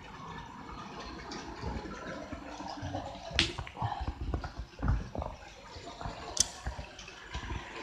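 An HO-scale model train running on a layout, a faint steady running noise, with irregular low thumps in the middle and two sharp clicks, one a third of the way in and one near the end.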